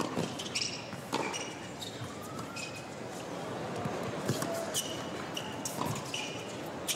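Tennis rally on an indoor hard court: sharp racquet strikes on the ball every second or few, with short high sneaker squeaks on the court surface between shots.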